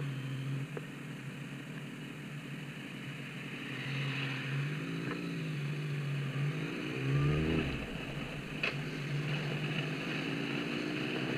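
A motor vehicle engine running, its pitch rising a few times as it speeds up.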